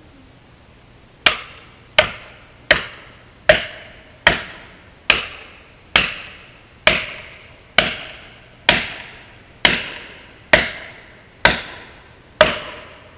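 Steady hammer blows on the cut of the alder tree being felled: about fourteen sharp strikes, a little under one a second, each ringing briefly.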